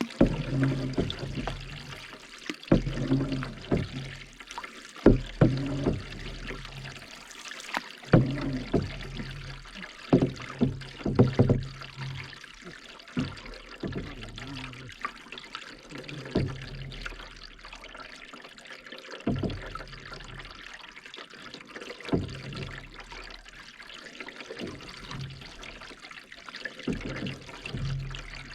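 Canoe paddling: water splashing and trickling off the paddle, with irregular sharp splashes and knocks every second or two.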